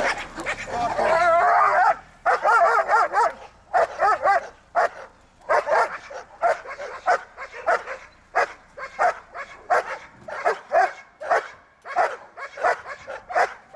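German shepherd dog barking nonstop at a helper hidden behind a blind, in a bark-and-hold protection exercise. The first few seconds are drawn-out, wavering yelping barks. After that come short, sharp barks at about two a second.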